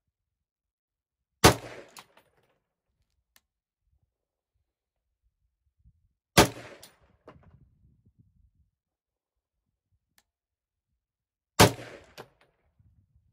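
SIG 716 first-gen .308 semi-automatic rifle firing three single shots about five seconds apart. Each sharp report trails off in a short echo, with a faint tick about half a second after.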